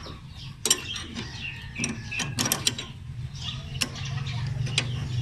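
Combination wrenches clicking and clinking on the blade-drive nut of a Yanmar AW70V reaper as it is tightened, in scattered sharp metal ticks. A low steady hum comes up in the background in the second half.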